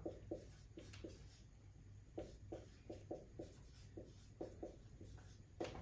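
Hand-writing: a dozen or so short, faint, irregular strokes of a pen or marker on a writing surface.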